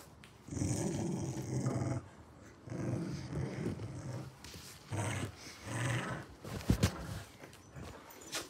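Labradoodle growling in play, three drawn-out rumbling growls, the kind of growl the owner means by 'he won't bite'. A sharp knock sounds near the end.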